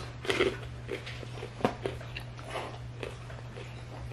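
Biting into a fried samosa and chewing close to the microphone: scattered crisp crunches of the pastry, the sharpest a little past a second and a half in, over a steady low hum.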